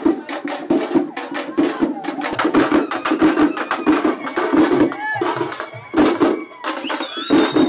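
Processional drums beaten in a fast, driving rhythm of sharp strokes over a heavier beat about twice a second, with crowd voices underneath.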